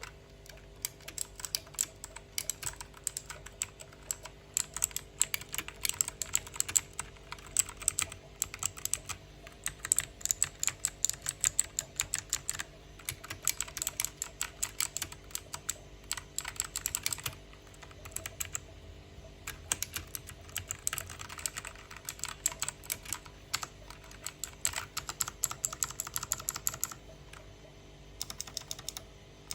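HyperX Alloy Origins Core mechanical keyboard with clicky blue switches being typed on: fast, irregular runs of sharp key clicks, broken by a few brief pauses.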